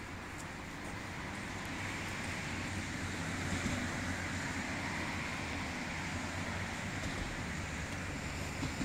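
Steady city traffic noise, a continuous wash of vehicles and road noise with a low engine hum, growing a little louder over the first few seconds.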